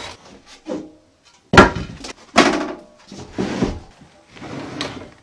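Wooden sink-cabinet parts being pulled out and handled: two loud knocks about one and a half and two and a half seconds in, then softer, longer scraping and handling noises.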